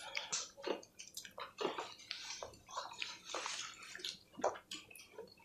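Chicken cheese naan being torn by hand and chewed: a string of soft, irregular crackles and mouth sounds.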